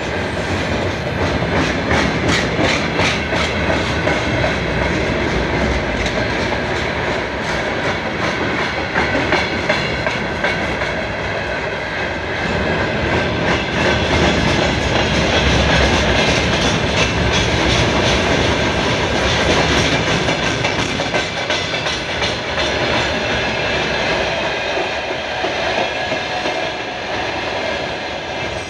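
Loaded freight train rolling past: the wagons' wheels clacking over rail joints over a steady rumble, with the rails creaking and thin high squealing tones.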